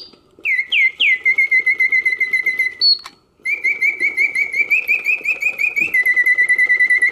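Karl Griesbaum singing bird cage's mechanical bird song on the continuous setting: a bellows-driven piston whistle giving a couple of swooping notes, then rapid warbling trills, broken by two short pauses between phrases. The song is full and even, the sign of a movement in good working order.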